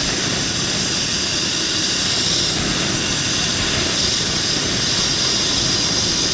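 Loud, steady rushing hiss as a Nissan X-Trail drive-belt pulley is spun for testing. The pulley's bearing is noisy, a sign that it is worn and due for replacement.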